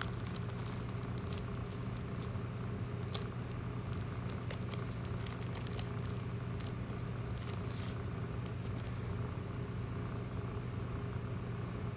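Light crackling and rustling from a foil Pokémon booster pack and cards being handled, in scattered small clicks, over a steady low hum.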